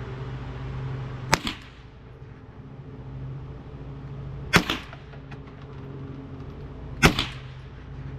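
Three single shots from a Mossberg International 715T .22 LR semi-automatic rifle, roughly three seconds apart, each a sharp crack followed by a short echo. A steady low hum runs underneath.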